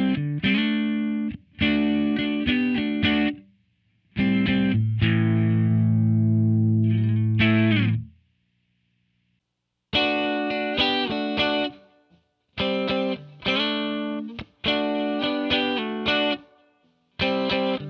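Electric guitar played direct through a Line 6 POD 2.0 amp-modelling preset with a distorted tone. A few short strummed chords give way to one chord held for about four seconds. After a gap of about two seconds comes a run of short, rhythmic chord stabs.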